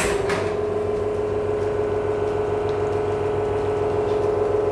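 Commercial espresso machine's pump running steadily with an even tone while it pulls a double shot of espresso.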